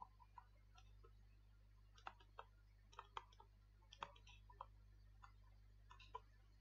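Near silence with faint, irregular clicks and taps of a pen stylus on a writing tablet as words are handwritten, over a faint steady low hum.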